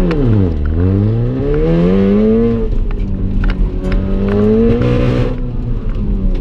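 The turbocharged 2.0-litre four-cylinder of a big-turbo Mk7 VW Golf R, heard from inside the cabin, pulling hard under acceleration. Its pitch dips at the start, then climbs for about two seconds and drops a little under three seconds in. It climbs again and drops once more about five seconds in, with a short hiss just before that drop and a few sharp clicks along the way.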